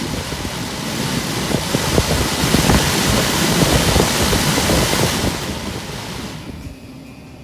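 Fan on a Suzuki Cervo running with a whooshing rush and a rapid, irregular clicking rattle: the abnormal fan noise being diagnosed. The sound swells, is loudest around the middle, and dies away about a second before the end.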